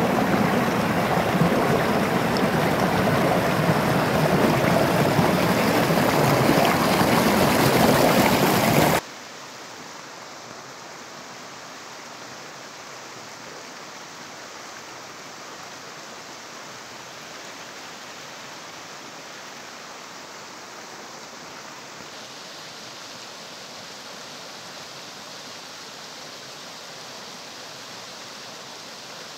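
Stream water rushing over mossy rocks, loud and steady; about nine seconds in it cuts abruptly to a much quieter, steady stream sound.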